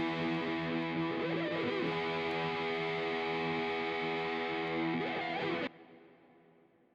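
Background music: distorted electric guitar chords held steady, cutting off sharply near the end and then fading into a short ring-out.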